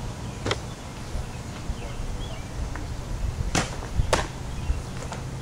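Softball smacking into a catcher's mitt: one sharp smack about half a second in, then two louder smacks about half a second apart past the middle as the catcher reaches high for a pitch, and a fainter one near the end.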